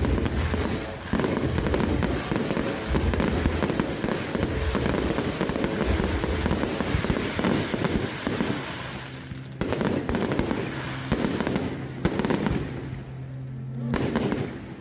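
Fireworks barrage: a dense, rapid run of bangs and crackling that thins out after about nine seconds into a few separate bursts, with a steady low hum underneath toward the end.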